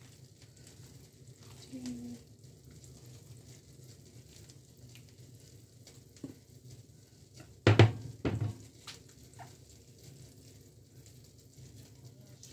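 Silicone spatula stirring wet glutinous rice, water and brown sugar in a glass bowl until the sugar dissolves: a soft, steady wet scraping with small ticks. About eight seconds in come two sharp knocks, the loudest sounds.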